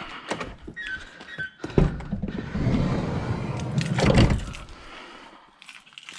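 A knock about two seconds in, then a rumbling, scraping noise for a couple of seconds that ends in a heavier thud, then quieter handling sounds.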